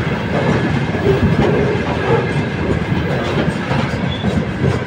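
Freight train of tank wagons rolling past, wheels clacking over the rail joints; the last wagon goes by near the end.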